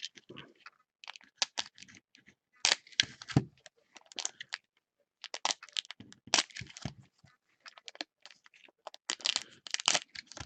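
Trading-card packaging being torn and crinkled as a box of card packs is opened: irregular bursts of tearing and crackling plastic and foil.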